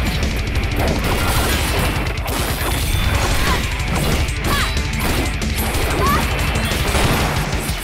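Animated sword-fight sound effects: a rapid run of blade slashes, metallic hits and crashes of robots being smashed, played over continuous driving score music.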